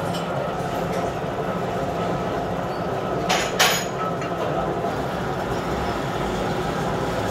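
Gear hobbing machine running, its hob cutting teeth into a helical gear blank: a steady mechanical drone with a faint high tone. Two brief noisy bursts come about three and a half seconds in.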